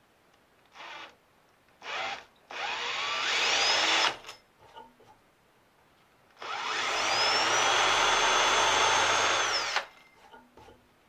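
Cordless drill with a twist bit boring into the end of a wooden block: two short trigger blips, then two runs of drilling. In each run the motor's whine rises as it speeds up; the second run lasts about three seconds, holds steady, and stops near the end.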